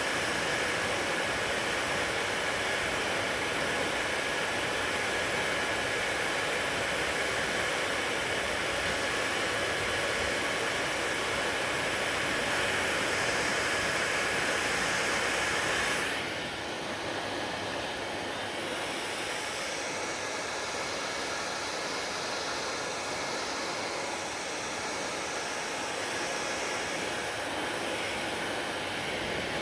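Hair dryer blowing steadily, a constant rushing hiss with a faint high whine. About halfway through the sound turns duller and a little quieter, the whine and much of the hiss dropping away, and it then runs on steadily.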